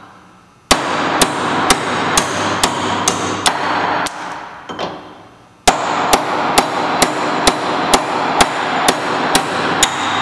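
Steady hammer blows on steel held in a bench vise, about two a second, driving out the bolts of a Jaguar XJ6 rear-axle output shaft; each blow rings on into the next. Two runs of blows with a pause of about a second and a half near the middle.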